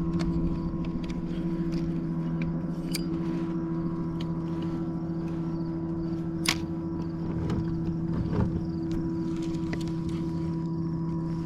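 Electric kayak motor running with a steady hum, with scattered light clicks and ticks over it.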